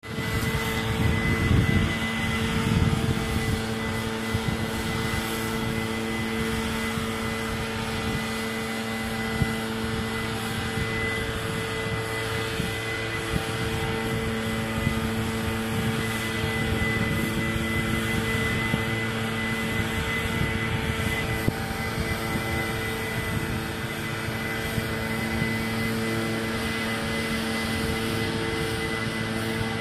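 Engine-powered backpack leaf blower running steadily, a constant drone with a thin high whine as it blows fallen leaves across a lawn.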